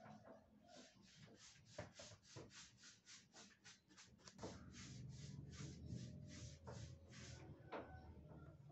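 Faint rhythmic scraping, about three short strokes a second, stopping near the end, with a low hum coming in about halfway through.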